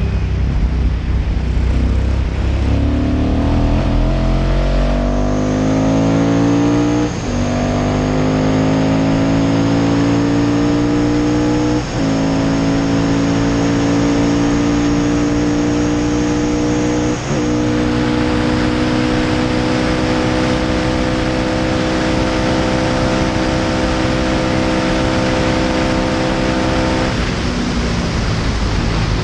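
Ducati-engined classic racing sidecar at full throttle, heard onboard with heavy wind rush. The engine note climbs and breaks sharply three times as it is shifted up through the gears, then fades near the end as the throttle comes off.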